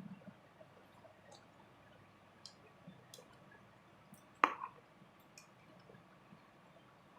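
Faint scattered ticks and taps, with one sharp click about four and a half seconds in; no motor is running.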